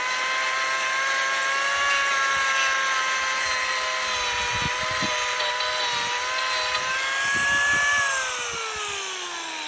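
Angle grinder with a carving disc running steadily, its whine dipping slightly as it bites into the wood during shaping. It rises briefly near the end, then winds down in pitch as the tool is switched off.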